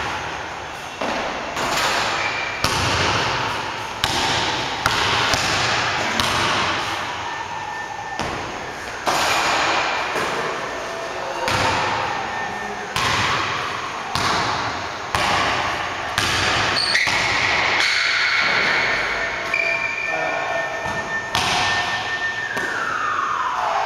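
Basketball bouncing on a hardwood gym floor in irregular dribbles, each thud echoing around the empty gym.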